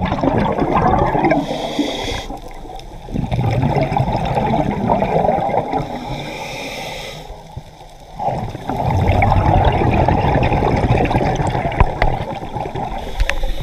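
Scuba diver breathing through a regulator underwater: long stretches of gurgling exhaled bubbles, with a brief higher hiss between them about a second and a half in and again about six seconds in.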